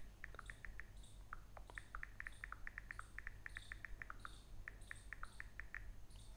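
Quick runs of short, high-pitched animal chirps, several a second, over a steady low hum.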